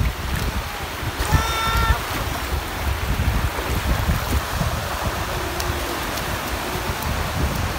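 Wind buffeting the microphone over the wash of shallow surf, with a short high-pitched call about a second and a half in.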